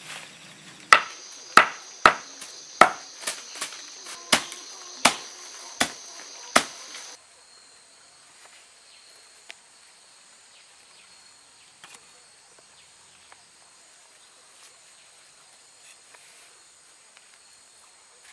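About a dozen sharp snaps, roughly two a second, over a steady high insect chirring; about seven seconds in this cuts to a quieter, higher insect trill with faint soft scrapes of a garden trowel in potting soil.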